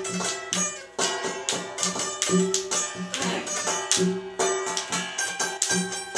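Chitrali sitar, a long-necked plucked lute, played in a quick rhythmic strumming pattern. Hand drumming on an upturned steel basin accompanies it at about three beats a second.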